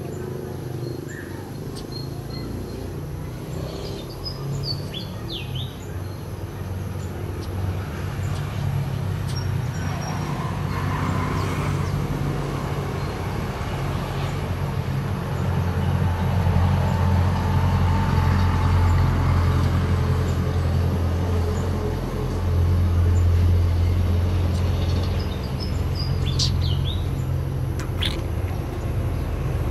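A steady low engine-like hum that grows louder about halfway through, with a few short bird chirps a few seconds in and again near the end.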